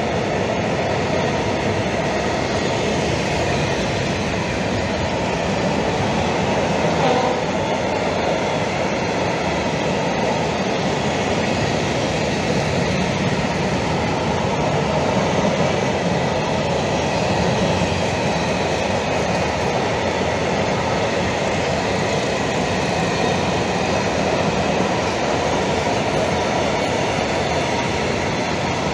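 Freight train of open coal wagons rolling past close by: a steady, continuous noise of steel wheels running on the rails.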